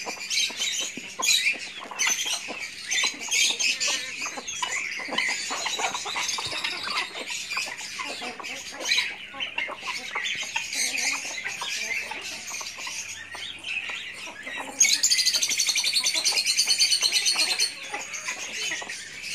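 A backyard flock of country chickens, including black Kadaknath birds, clucking and peeping continuously as they feed together. Near the end a louder, high, rapidly pulsing buzz runs for about three seconds.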